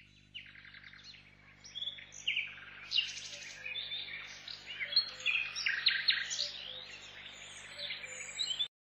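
Several small birds chirping and twittering, many quick high notes overlapping, over a faint steady low hum; it begins abruptly and cuts off suddenly near the end.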